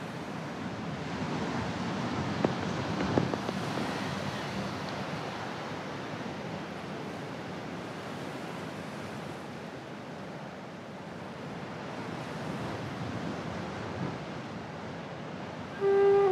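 Ocean surf and wind on a beach: a steady wash of waves that swells and eases, with two brief clicks a few seconds in. A held, flute-like music note comes in right at the end.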